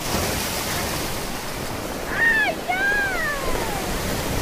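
Surf breaking and washing up a sandy beach, a steady rushing noise. About two seconds in, two short high cries with sliding pitch rise above it.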